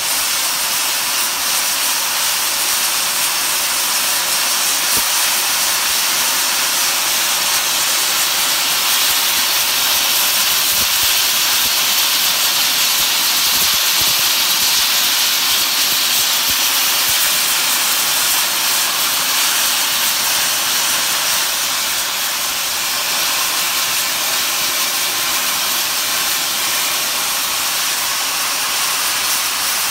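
Union Pacific Big Boy No. 4014 steam locomotive venting steam in a loud, steady hiss that swells a little around the middle.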